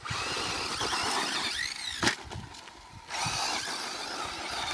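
Remote control car driving over rough ground, its motor whining and its wheels making a gritty rolling noise, in two bursts. There is a sharp knock about two seconds in.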